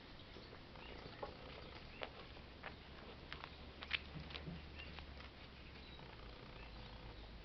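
Faint scattered light taps and clicks, the sharpest about four seconds in, with a few short high chirps in between over a low, steady rumble.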